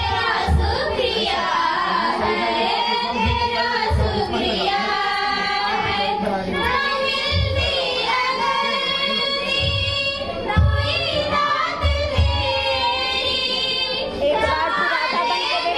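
A group of girls singing a song together in unison into microphones, with long, held notes. Low thumps come now and then under the singing.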